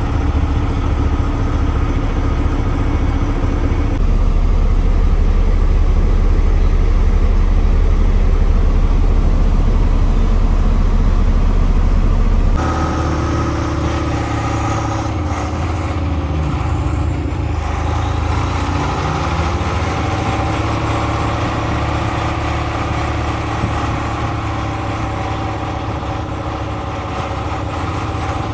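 Log truck's diesel engine running at a steady speed, heard from inside the cab. Its note shifts abruptly about four seconds in and again about twelve seconds in.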